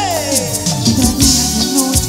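Live cumbia romántica band playing, with steady bass, rhythmic percussion and a melody line that slides down in pitch at the start.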